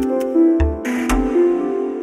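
Electronic background music: a synthesizer melody of short stepping notes over a bass drum beat, with a brief swoosh about a second in.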